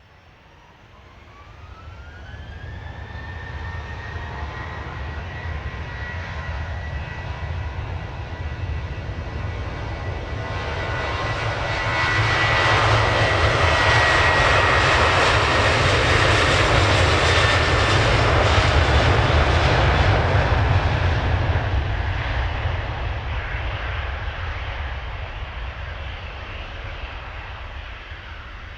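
Jet airliner passing by. A high engine whine rises early and then holds over a deep rumble. The sound swells to its loudest about halfway through, then slowly fades.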